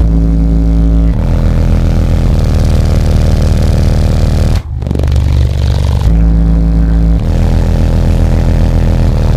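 Very loud bass track played through four Ampere Audio 15-inch car subwoofers inside the vehicle, deep bass notes shifting about every second. The sound drops out for a moment about halfway through.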